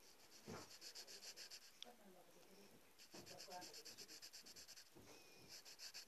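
Faint, quick back-and-forth scribbling of a drawing tool on paper, about ten strokes a second, in three runs with short pauses between them.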